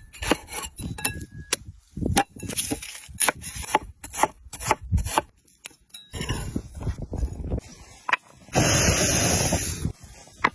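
A run of sharp knocks, clicks and scrapes, then a loud steady hiss lasting about a second near the end.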